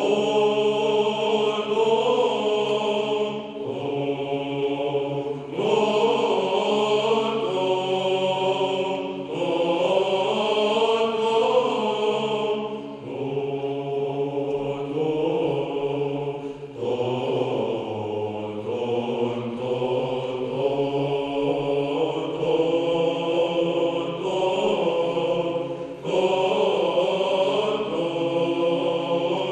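Unaccompanied Orthodox male choir singing Byzantine chant: a low held drone (ison) under a moving melody line, sung in phrases that pause briefly every few seconds.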